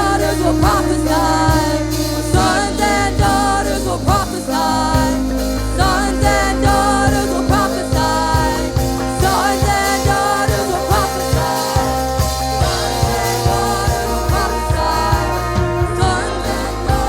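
Live gospel worship music: voices singing a melody over steady bass, keyboard and a regular drum beat.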